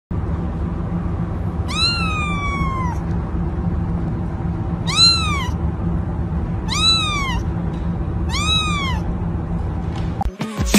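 Young kitten meowing four times, about two seconds apart: high calls that rise and then fall in pitch, the first one longer than the rest. A steady low hum runs underneath.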